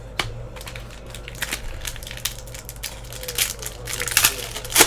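Trading card packs being handled: crinkling and rustling of the plastic pack wrappers and cards, a run of short crackles that grow busier toward the end.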